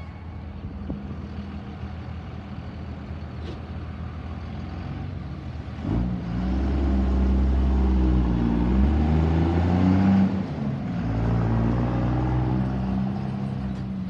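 Pickup truck engines accelerating past one after another, getting much louder about six seconds in, their pitch rising and falling as they speed up. A low steady engine hum comes before them.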